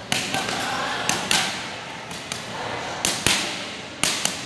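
Boxing gloves striking focus mitts: sharp slaps in short combinations, about six hits, two of them in a quick pair near the start and another quick pair about three seconds in.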